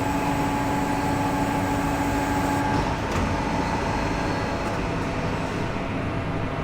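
CNC tube bending machine running through a bend on a 25 mm aluminium tube: a steady mechanical hum with a whine, whose pitch shifts slightly with a brief click a little under three seconds in.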